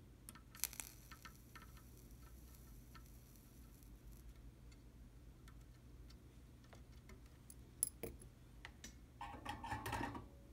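Small metal tools working on a circuit board: faint, scattered ticks and clicks as a soldering iron tip and tweezers touch the parts while capacitors are soldered in, then a short spell of handling clatter near the end as the tools are lifted away.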